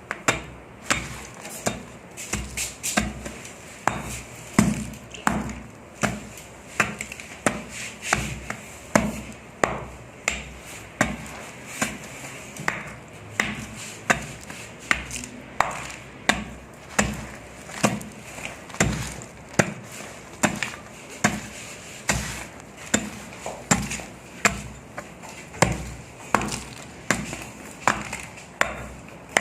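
Dry, dusty sand clumps being crushed and crumbled, a crunchy crack about once or twice a second throughout.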